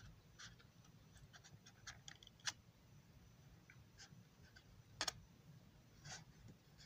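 Near silence with faint scratches and small clicks of a plastic model passenger car being handled, and two sharper ticks a few seconds apart.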